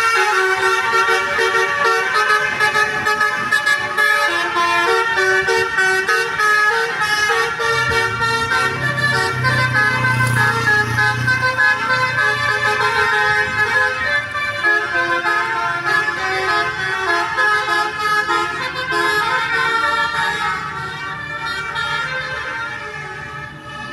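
Bus Basuri 'telolet' musical air horn playing a tune of stepped notes, one note after another without a break. A bus engine swells under it about halfway through, and the horn fades away near the end.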